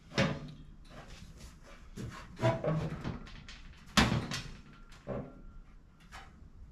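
Steel trunk floor pan clunking against the car's body as it is pushed and shifted into place for a test fit: four knocks, the loudest about four seconds in, some with a short metallic ring.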